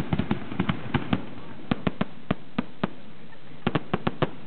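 Fireworks display: aerial shells bursting in a rapid, irregular string of sharp bangs, a few every second, with a brief lull about three seconds in.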